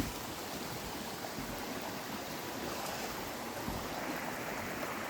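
Creek water running over the rocks of the Leura Cascades: a steady rush.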